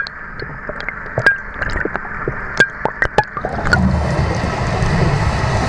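Underwater sound picked up by a camera in a housing: scattered sharp clicks over a muffled water hiss. From a little under four seconds in, a steadier, fuller noise of scuba divers' exhaled regulator bubbles takes over.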